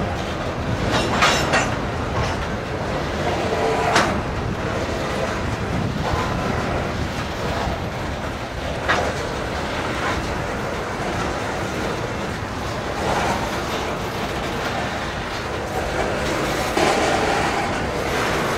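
Covered hopper cars of a loaded grain train rolling past: a steady rumble of steel wheels on rail, with a few sharp clicks and clanks from the wheels and couplings.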